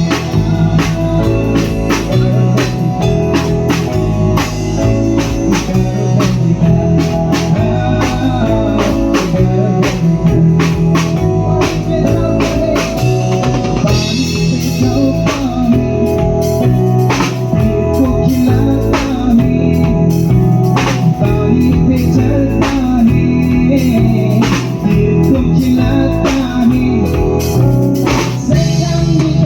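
Band music with drum kit and guitar, loud and steady, with a regular drum beat; a sound check of a live band.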